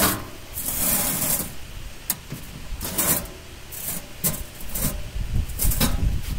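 Steel block mold of a concrete block moulding machine being pushed into the machine's frame: metal scraping and rubbing in several uneven bursts.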